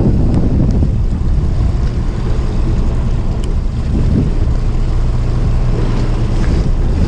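Wind buffeting the microphone as a steady low rumble, with waves washing against the boat's hull.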